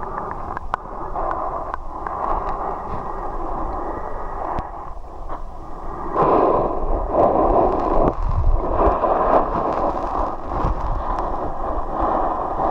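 Rushing and splashing river water around a swimmer, with scattered small clicks and knocks; it gets louder about six seconds in.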